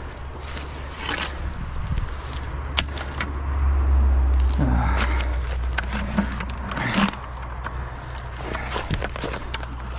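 Scrap metal being handled and put into a plastic bucket, with scattered clinks and scrapes, over a steady low rumble that swells about four seconds in.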